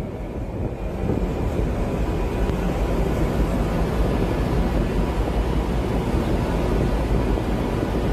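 Steady low rumble aboard a moving tugboat: the tug's engine drone mixed with wind buffeting the microphone.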